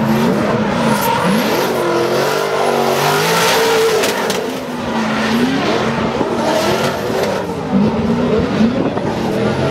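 Drift cars' engines revving up and down again and again in a tandem drift, over the hiss of tyres spinning and smoking.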